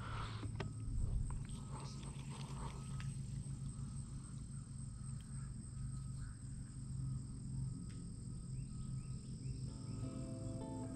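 Quiet creekside ambience: insects trilling steadily at a high pitch over a low steady hum, with a few faint clicks and rustles in the first three seconds. Plucked guitar music fades in about ten seconds in.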